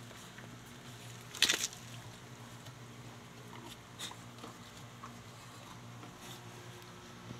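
Husky mother licking and nosing at her newborn puppies: soft wet mouth sounds and small clicks, with one short, louder noisy burst about a second and a half in, over a steady low hum.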